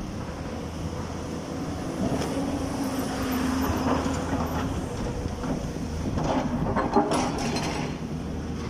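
Excavator's diesel engine running steadily, with a few clanks about six to seven seconds in.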